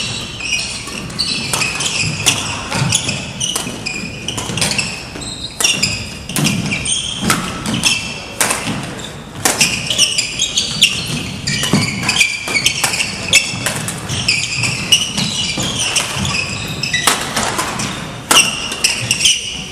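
Badminton doubles rally: rackets striking a shuttlecock at irregular intervals and shoes squeaking sharply on a wooden gym floor, in an echoing hall.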